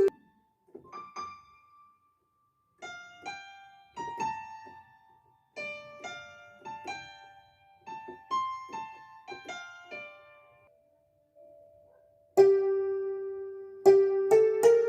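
Korg Pa300 arranger keyboard playing a slow melody in a struck, piano-like tone: single notes that die away quickly, with short pauses between phrases. Near the end, louder and longer-held lower notes come in.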